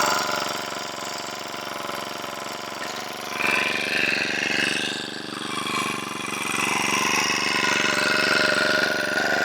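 An engine running steadily at idle, with a fast, even ticking of its firing throughout.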